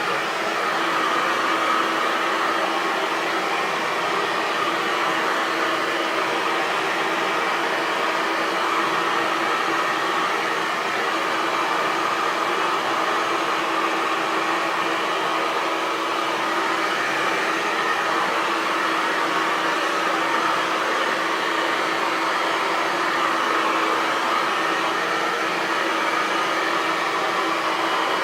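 Hair dryer running steadily, a constant rushing blow of air with a low motor hum underneath.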